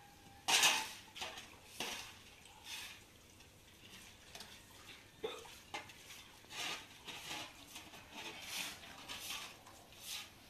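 Short straw hand broom sweeping water across a wet concrete floor: a string of irregular scratchy swishes, the loudest about half a second in.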